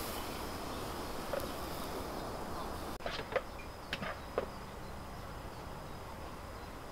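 Steady outdoor hiss with a faint high whine. After about three seconds come four or five sharp light clicks and taps as the frying pan and utensils are handled on the portable gas stove.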